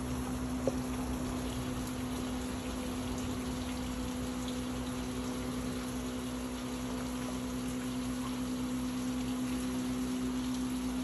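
Steady machine hum, one constant low tone over a continuous hiss, with a single faint tick less than a second in.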